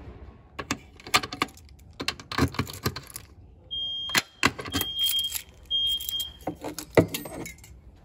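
A ring of metal keys jangling and clicking as it is handled, with three short high beeps about a second apart in the middle.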